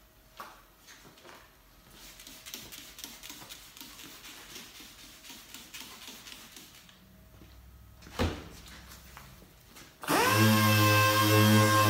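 Air-powered random orbital sander starting suddenly about ten seconds in and running at a steady pitch, wet-sanding a car's clear coat with a 3M Trizact 3000 disc on a Hookit pad. Before it starts there are only faint handling noises and a single knock.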